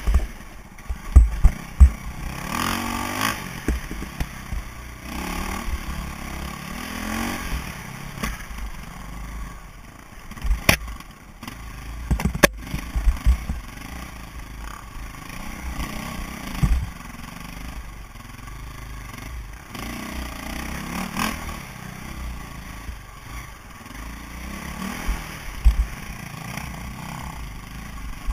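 KTM enduro motorcycle engine revving up and down as the bike is ridden over rough single track, heard from a helmet-mounted camera. Sharp knocks and clatter from trail bumps cut in now and then, the loudest between about ten and thirteen seconds in.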